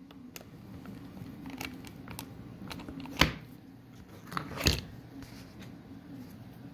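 A hard drive and its bracket being pressed down into a DVR's case: light scraping and handling noise with two sharp clicks, one about three seconds in and one near five seconds.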